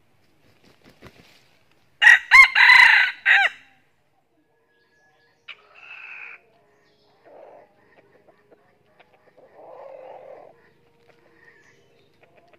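A red junglefowl rooster crows once, loud and short, about two seconds in, lasting about a second and a half. A few much softer, brief calls follow.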